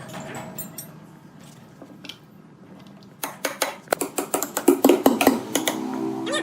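A quieter stretch, then from about three seconds in a rapid run of sharp clattering knocks of hard objects striking one another.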